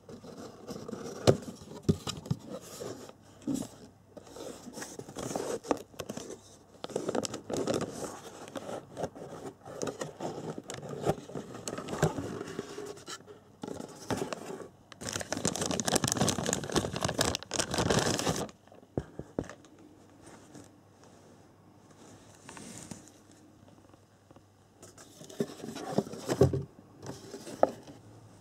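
Packaging handled during an unboxing: a cardboard box scraping and a plastic bag crinkling, with scattered knocks and clicks. The rustling is loudest and densest in a stretch a little past halfway.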